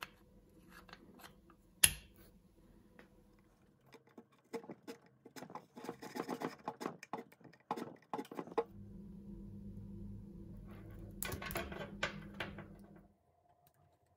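Small hand-tool work: a sharp click about two seconds in, then a run of scraping and tapping, then a steady low hum with more scraping over it that stops shortly before the end.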